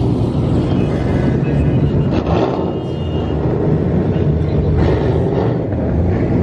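Vehicle engines running with a steady low drone, heard from inside a car as it and others pull out of a parking lot.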